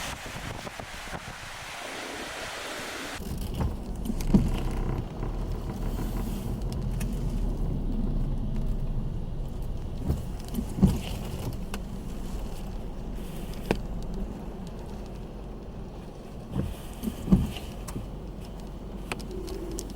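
Hiss of wind-driven rain and wind for about three seconds, then an abrupt change to a vehicle's steady low rumble with a low hum and scattered short knocks.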